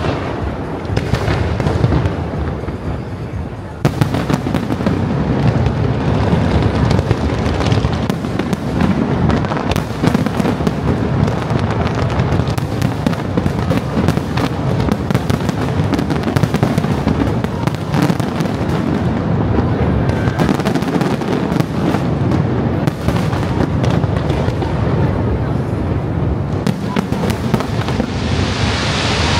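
Aerial display fireworks bursting at close range: a dense, continuous barrage of bangs and crackles over a rumbling boom, which thickens and gets louder about four seconds in.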